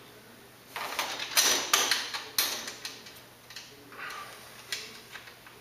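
Clattering and sharp knocks of an aluminium-tube trailer frame with a bolted-on floor being handled on a workbench. The noise comes in two bouts: a busier one from about a second in lasting some two seconds, and a shorter one around four seconds in.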